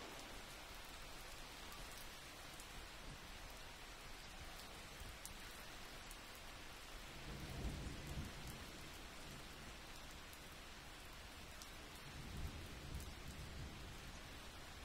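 Faint steady rain falling, with a low rumble swelling briefly twice, about halfway through and again near the end.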